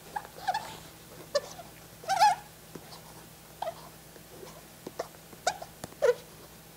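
Fingertip rubbing over a partly cured TuffToe polyurethane coating on a skate shoe, squeaking in a run of short, irregular squeaks, the loudest about two seconds in. The squeaking is the sign that the coating is at the right stage to be wiped from a gloss to a matte finish.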